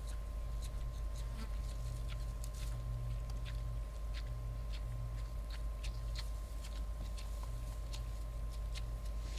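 Warthogs feeding on dung: irregular small crunching and clicking sounds, several a second, over a steady low rumble.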